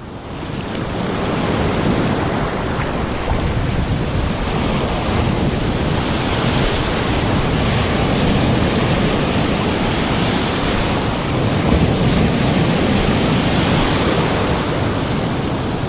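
Shallow beach surf washing and foaming around the legs, with waves breaking and rushing in a steady wash, and wind on the microphone.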